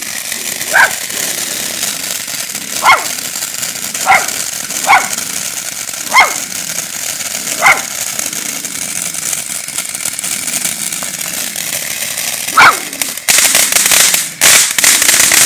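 A dachshund barking at a ground fountain firework: seven single sharp barks a second or two apart, over the steady hiss of the fountain's sparks. About thirteen seconds in, the fountain flares up into a much louder crackling hiss.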